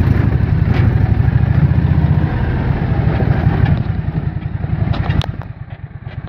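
A vehicle's engine running with a low, pulsing rumble as it moves down a dirt driveway, with a few light knocks; it gets quieter about five seconds in.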